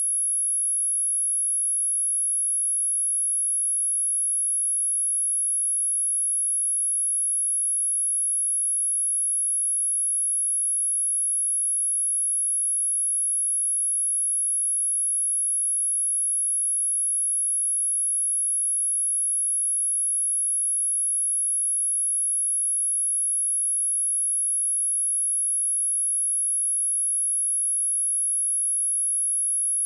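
Steady high-pitched pure sine tone at 10747 Hz, held unchanged at one level: a speaker test tone.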